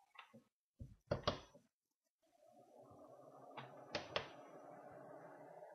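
A few sharp clicks of test leads and clips being connected, then a small DC centrifugal blower fan starts about two seconds in, spinning up and running with a steady motor hum, with a couple more clicks as the leads are handled.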